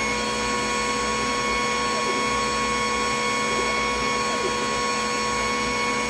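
Glowforge Plus laser cutter running a cut: a steady whir from its fans, with faint short whines from the motors as the laser head moves.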